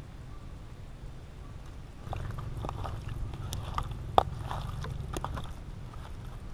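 A hand squeezing and mixing raw pork ribs with marinade in a plastic bowl: wet squelching with small clicks and smacks, starting about two seconds in and lasting a few seconds.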